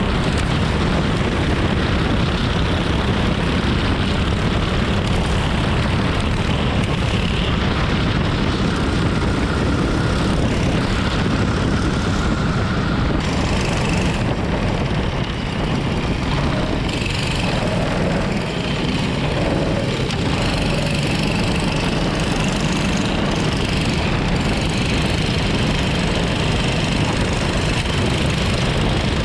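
Go-kart's Predator 425 single-cylinder engine running steadily during a dirt-track race, heard from a camera mounted on the kart's bodywork.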